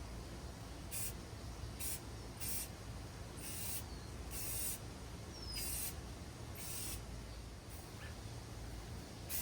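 Rust-Oleum gloss black aerosol spray paint being sprayed in about nine short hissing bursts, each under half a second long, as a metal bracket is painted.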